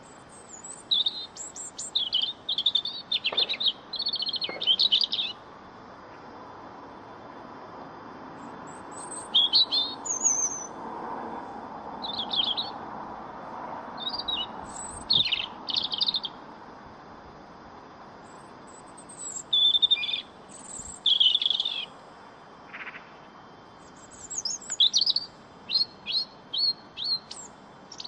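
European robin singing: about six phrases of fast, high, varied warbling notes, each a second or a few seconds long, with pauses of a few seconds between them over a faint steady background hiss.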